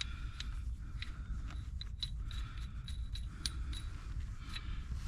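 Scattered light metallic clicks and clinks, about a dozen, at uneven intervals over a low steady rumble.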